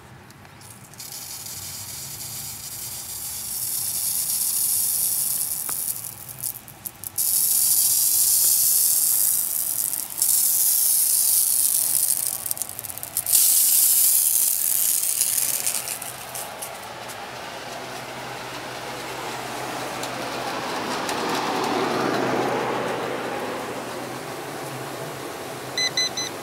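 Gear-driven pop-up rotor sprinkler heads spraying water: a hissing spray that comes and goes in loud stretches, then a softer, lower rush that swells and fades as a stream sweeps by.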